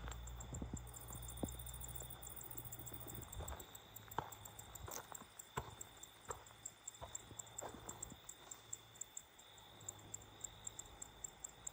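Night insects calling: a steady high trill with a fast, even pulsing, with scattered sharp clicks and small cracks over it. A low rumble fades out about three and a half seconds in.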